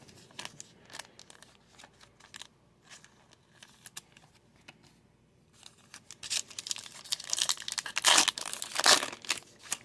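Light ticks of trading cards being shuffled in the hand, then from about six seconds in a trading-card pack wrapper crinkling loudly and tearing open.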